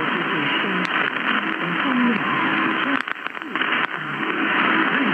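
Weak medium-wave broadcast on 1251 kHz from Hanzhong, China, received on an AOR AR5000 in LSB: faint speech buried in heavy, band-limited static hiss. About three seconds in the signal briefly dips, with a few crackles.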